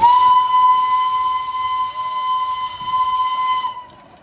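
Darjeeling Himalayan Railway toy train's whistle blown in one long, steady, high note with a hiss over it, cutting off sharply after about three and a half seconds.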